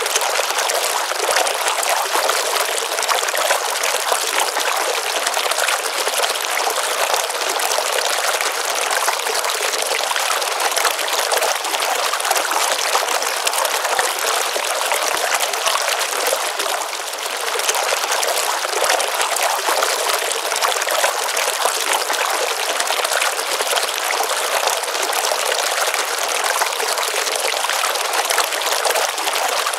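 A small stream of water running and splashing into a pond, a steady rush of falling water that dips briefly about seventeen seconds in.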